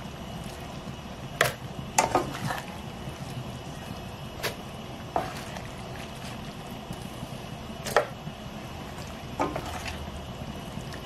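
Dried chiles, tomatoes and onion simmering in liquid in a stainless steel pan, a steady bubbling hiss, while a spatula stirs the mixture and clicks against the pan about seven times.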